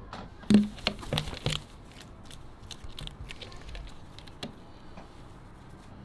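Herring gull snatching and gulping a sardine from a hand: a quick run of sharp clacks and knocks in the first second and a half, then lighter scattered taps.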